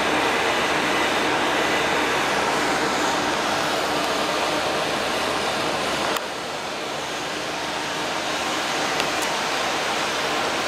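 Steady rushing noise of building ventilation or air conditioning, with a faint hum underneath; it drops suddenly in level about six seconds in.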